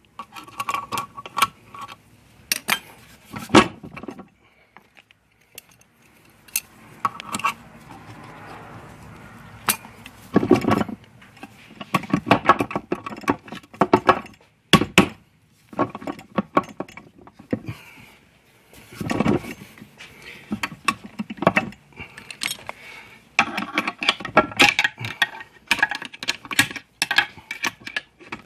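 Hand tools and metal parts clinking, clicking and knocking against a Honda Prelude manual transmission's aluminium case in irregular runs, with a few short pauses, as the gearbox is being assembled.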